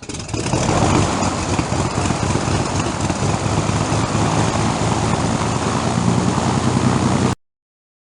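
Propeller aircraft piston engine starting: it fires up over the first second, then runs steadily. The sound cuts off abruptly near the end.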